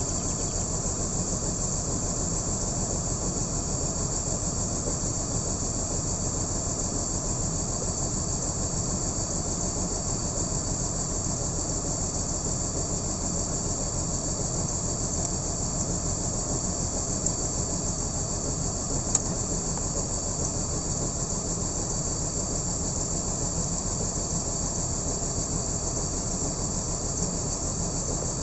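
BMW M54B30 3.0-litre straight-six idling steadily with a misfire and rough idle, which the owner suspects comes from one of the six ignition coils. Two faint ticks come about two-thirds of the way in.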